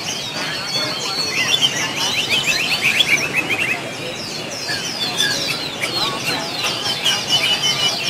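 Many caged songbirds singing at once, overlapping chirps and whistles. From about a second and a half in to nearly four seconds, one bird sings a quick run of evenly repeated notes.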